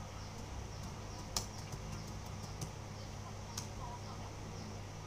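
Steady low hum of room tone with three faint, sharp clicks about a second apart in the middle.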